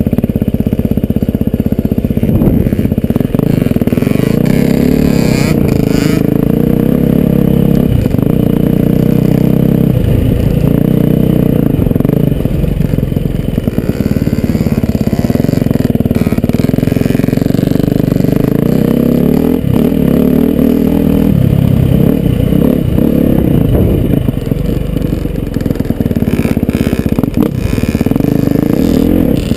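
Motocross dirt bike engine running hard on a dirt track, revving up and down through the corners, heard from a helmet-mounted camera. A few brief knocks now and then.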